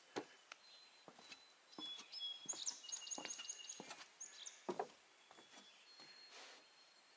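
Songbirds singing thin, high whistled notes, including a quick run of about five repeated notes near the middle, with a few soft knocks scattered through.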